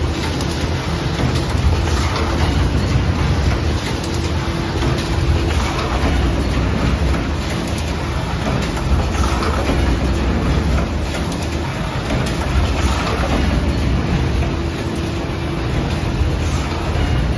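Automatic rigid box wrapping machine and its conveyor running: a steady low hum with continuous mechanical clatter.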